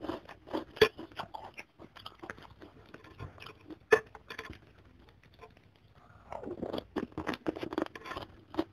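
Close-miked mouth sounds of a person chewing crunchy kerupuk crackers. Dense crisp crunching comes in the first second or so, then thins out. There is a single sharp click about four seconds in, and another thick run of crunching comes near the end.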